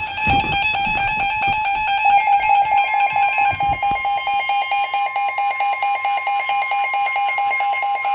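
Emergency alert attention signal: a loud, steady electronic alarm tone with a rapid, even pulsing through it, and a second, higher tone joining about four seconds in.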